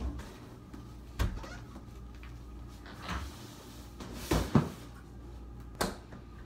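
Front door shutting and a heavy cardboard box being set down on a hard floor: a few separate knocks and thuds, the loudest a double thud a little past the middle, then a sharp click near the end.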